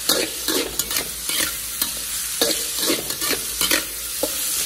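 Diced vegetables, corn and sesame sizzling in hot oil in a wok while a spatula stir-fries them, scraping and knocking against the pan in irregular strokes about two to three times a second.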